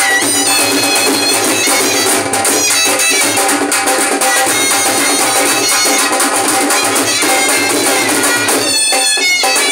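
Shehnai playing a melody over two dhol drums beating a steady rhythm.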